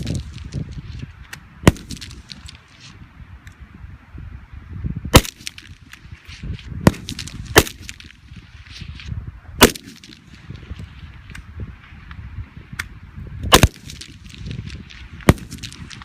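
Heckler & Koch MR556A1 5.56 mm semi-automatic rifle firing single shots, about seven loud sharp cracks at uneven intervals, with fainter cracks between them.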